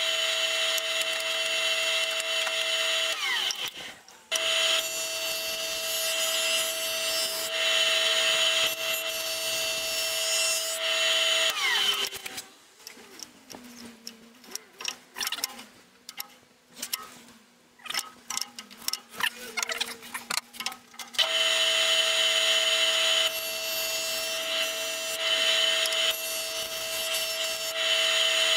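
Electric surface planer (jointer) running with a steady hum, louder hissing swells as wood is fed over the cutter block. About 12 seconds in it shuts off and the sound drops to light knocks and handling, then it starts up again about 21 seconds in.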